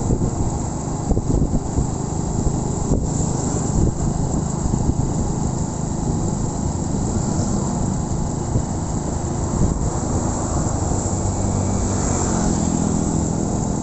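Honda Win 100 motorcycle's single-cylinder engine running steadily while riding, with wind rushing over the microphone. The engine note changes pitch about twelve seconds in.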